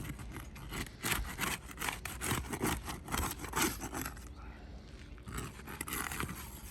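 A hand tool scraping under roof shingles to loosen them from the courses around them, in rapid repeated strokes. The strokes ease off about four seconds in and pick up again briefly near the end.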